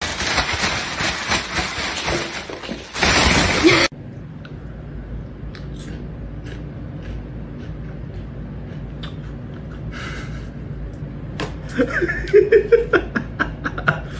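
Thin plastic carrier bag rustling and crinkling for about four seconds, loudest just before it stops suddenly. Then quieter scattered ticks, with a cluster of short pitched sounds and clicks near the end.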